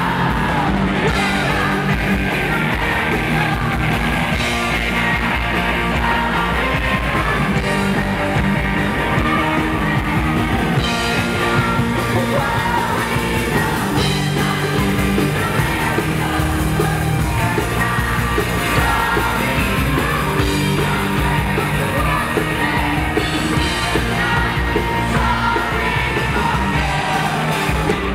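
A live rock band playing loud and steady: a woman sings lead over drums, electric guitar and keyboards.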